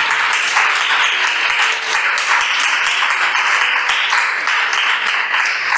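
A congregation applauding: many hands clapping together in a dense, steady patter that stops near the end.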